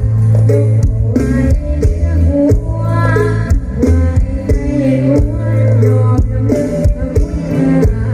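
Mor lam band playing live through a loud sound system: heavy bass and regular drum hits under a melody on electric guitar, with singing.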